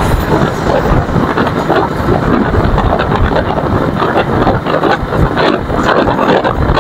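Wind rushing unevenly over the microphone of a motorcycle riding along at road speed, with the bike's running noise underneath.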